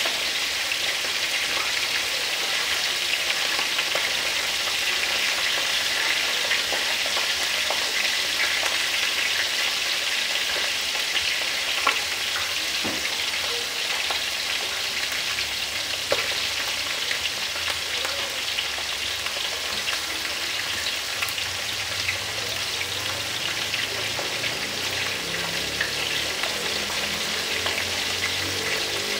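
Whole basasong fish shallow-frying in hot oil: a steady sizzle full of small pops and crackles.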